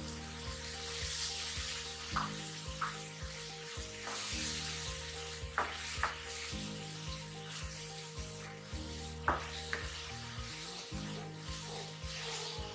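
Keema (spiced minced meat) frying in tomato-onion masala in a nonstick wok, sizzling steadily as a wooden spatula stirs it, with a few sharp clicks of the spatula against the pan.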